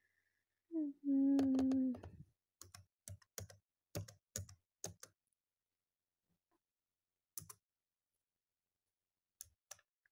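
Typing on a laptop keyboard: a quick run of about a dozen key clicks, then a few scattered clicks near the end. About a second in, a person's voice gives a short held hum, the loudest sound.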